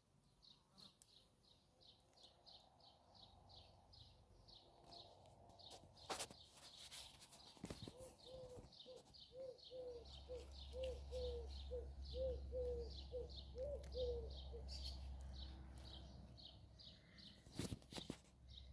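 Songbirds calling: one small bird repeats a short high chirp about three times a second throughout. About eight seconds in, a lower call starts and repeats about twice a second for several seconds. A low steady rumble joins about halfway through.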